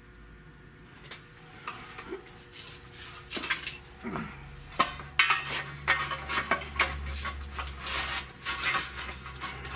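Metallic clinks and knocks of a sheet-metal Buick valve cover and hand tools being handled and tapped at a vise while its bent flanges are straightened. A steady low hum comes in about four seconds in.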